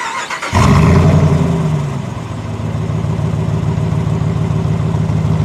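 2020 Ram 1500 Rebel pickup starting: a short crank, then the engine catches about half a second in, flares up and settles into a steady idle.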